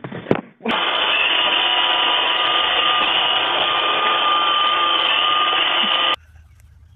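A robot vacuum cleaner runs with a steady motor hum and whine, starting abruptly just under a second in and cutting off suddenly about six seconds in. A single sharp knock comes just before it.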